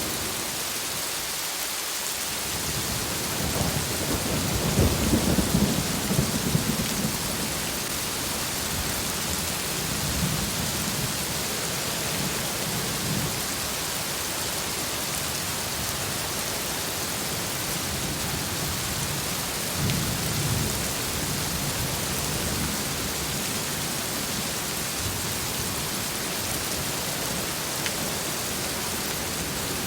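Heavy rain falling steadily, with low rolls of thunder rumbling through it several times, the strongest about four to seven seconds in.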